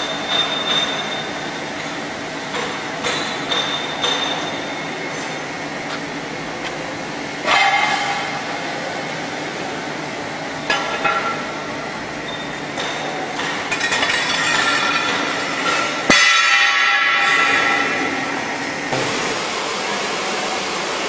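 Steady machinery noise on a welding-machine shop floor, with a few sharp metallic clanks and a louder hissing stretch about two-thirds of the way through.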